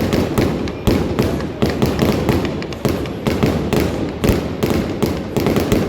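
Aerial fireworks going off in quick succession: a steady run of sharp booms and crackles, several a second, over a continuous rumble.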